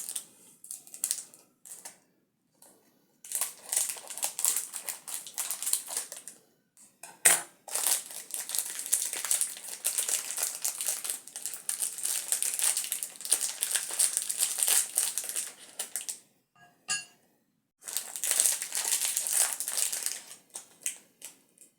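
Toy packaging being unwrapped by hand, crinkling and rustling in three long stretches, with a sharp click about seven seconds in.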